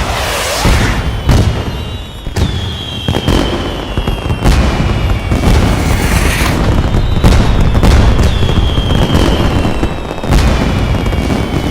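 Fireworks display: a rapid series of shell bursts and booms, roughly one a second, over a continuous low rumble and crackle. After several bursts a high thin whistle lingers, slowly falling in pitch.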